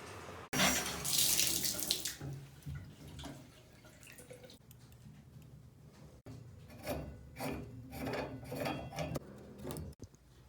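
Water running from a tap, loudest as a full hiss in the first couple of seconds, then quieter splashing and uneven spurts of water, broken by abrupt edit cuts.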